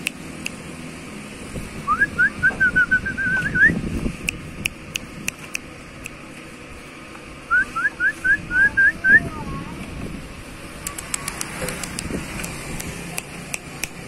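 Oriental magpie-robin singing two bursts of quick, rising whistled notes, the second about five seconds after the first, with scattered sharp clicks between.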